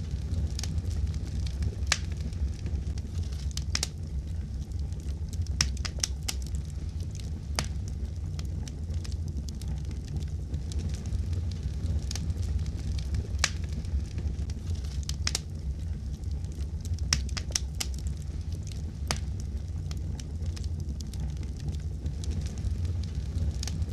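Wood fire crackling in a fireplace: a steady low rumble of the flames with sharp, irregular pops and snaps of burning wood.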